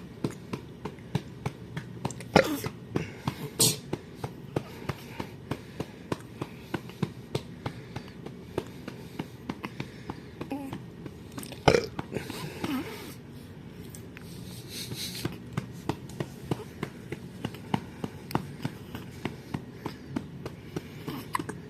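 A newborn baby making small, soft mouth and throat sounds, repeated about twice a second, with a few sharper knocks near the start and about halfway through.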